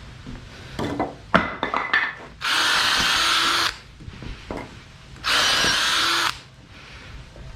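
Power drill running in two short bursts of about a second each, with a steady motor whine, after a few knocks and clatters of handling tools and wood.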